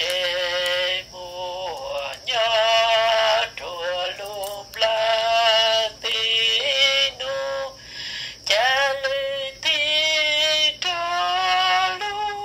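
A person singing a slow melody in long held notes, with short breaks between phrases.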